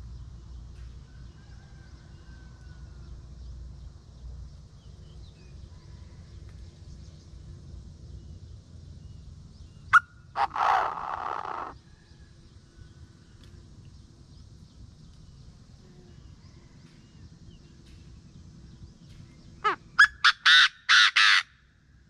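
Chinese francolin calling loudly: one harsh call about ten seconds in, then a fast run of about six sharp, loud notes near the end.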